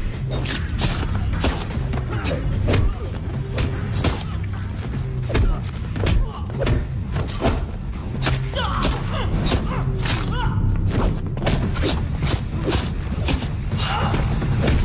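Action-film fight sound effects: a rapid, irregular string of sharp hits and thuds, two or three a second, over loud background music.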